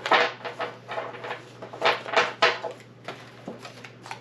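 Foil trading-card booster-pack wrapper crinkling and the cards rustling as they are pulled out and handled, in several short rustles.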